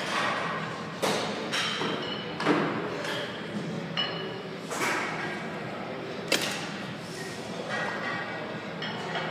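Gym free weights clanking: about seven sharp metal knocks and thuds, some ringing briefly, over a steady hum of background noise.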